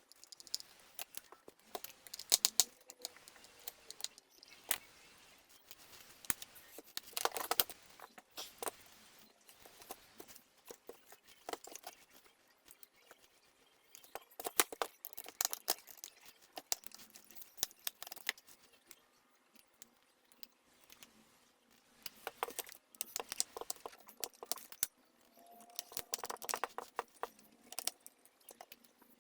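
Handling of plastic vacuum-cleaner parts: irregular clicks, taps and light rattles in clusters, with quieter pauses between.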